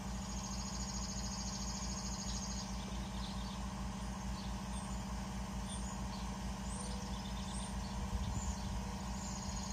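Air compressor running with a steady, even low pulsing while a tire is inflated, with a high hiss of air that drops out after a couple of seconds and returns near the end. A few bird chirps over it.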